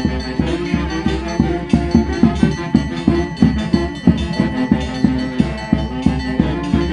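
Andean Santiago festival dance music playing, with a steady drum beat of about three strokes a second under sustained melody.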